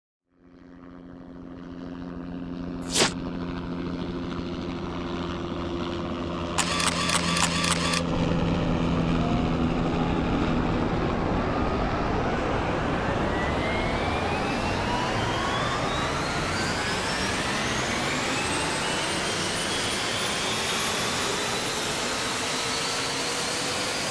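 DJI Phantom quadcopter drone starting up: a low hum, a sharp click about three seconds in, a quick run of beeps around seven seconds, then the propeller whine rising steadily in pitch for about ten seconds before levelling off.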